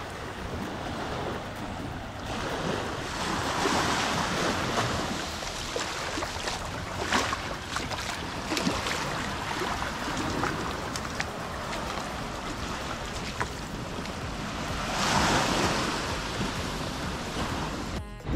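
Ocean surf with waves breaking and washing in, swelling about four seconds in and again near the end. Wind buffets the microphone, and a few light clicks come in the middle.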